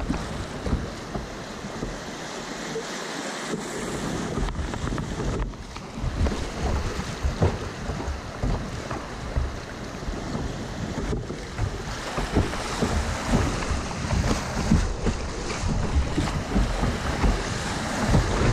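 River rapids rushing and splashing around a kayak's bow as it runs down white water, with wind buffeting the microphone. The splashing grows louder and choppier through the second half as the kayak meets bigger standing waves.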